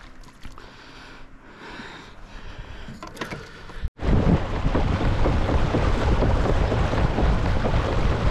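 Wind buffeting the microphone and water rushing along the hull of a kayak under way. This loud rumble and hiss sets in abruptly about four seconds in, after a quieter stretch of light water noise.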